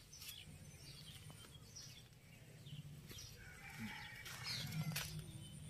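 Faint outdoor background with scattered bird chirps and a distant animal call from about three to five seconds in, over a low steady hum.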